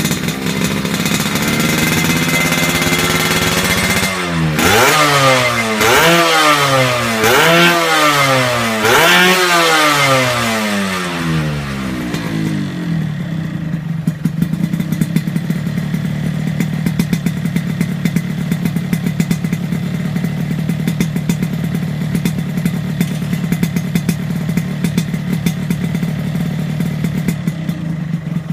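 Yamaha RX-King's two-stroke single-cylinder engine running through a Creampie aftermarket expansion-chamber exhaust with aluminium silencer. It runs at a steady fast idle, is revved in about five quick throttle blips from about four seconds in, then settles back to idle with a rapid, uneven popping.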